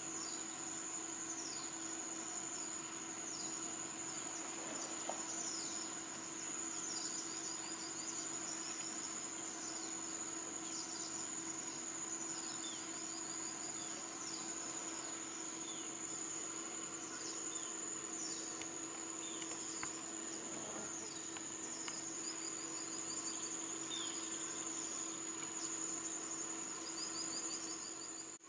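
Steady, high-pitched chorus of insects, with many short, falling calls repeating over it every second or so.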